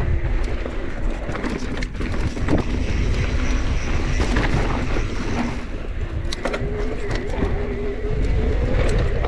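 Mountain bike riding over a bumpy dirt singletrack, heard with wind rush on the microphone. The bike gives off a string of clicks and rattles over the bumps, and a steady mid-pitched whine fades out in the middle and comes back near the end.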